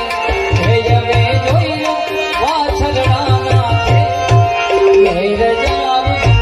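Live music with a steady hand-drum beat and a wavering melody line over it.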